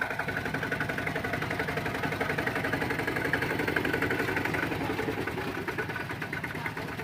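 Kubota RT120 single-cylinder diesel engine of a two-wheel walking tractor running steadily with a rapid, even beat.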